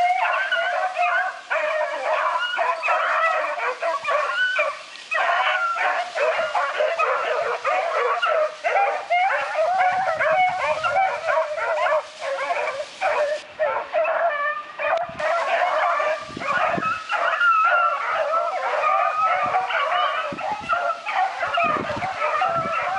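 A pack of rabbit-hunting dogs baying and yipping, many voices overlapping without a break.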